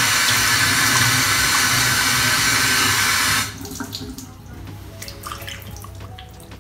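Bathroom tap running into a sink, turned off abruptly about three and a half seconds in; after that only faint scattered splashes and small knocks.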